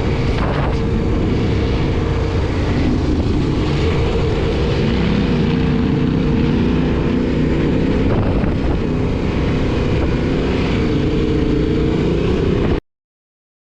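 Yamaha Ténéré 700's parallel-twin engine running steadily under way, with wind and road noise over it; the pitch drifts slightly, and the sound cuts off abruptly near the end.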